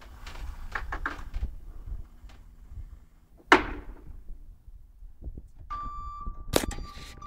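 Forklift working a jet ski off a lorry bed: a low running rumble with knocks and clatter, one loud clank about three and a half seconds in, then the forklift's warning beeper starting near the end with another sharp knock.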